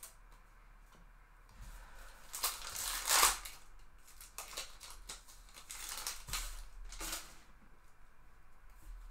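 A trading-card pack's wrapper being torn open and crinkled, loudest about three seconds in, followed by softer rustles and taps as the stack of cards is handled.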